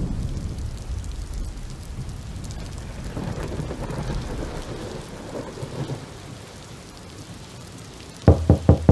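Rain with a low rumble of thunder, easing off after about six seconds. Near the end, a quick run of loud knocks begins.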